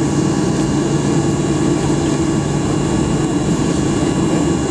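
Jet airliner's engines running steadily, heard from inside the passenger cabin as the aircraft rolls along the taxiway. The noise holds one even pitch with no spool-up.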